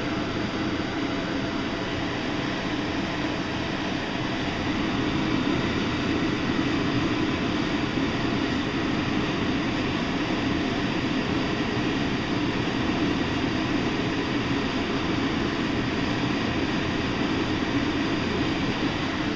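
Gas stove burner running steadily under a ceramic bowl of melting solder, a continuous rushing noise that grows a little louder about four seconds in.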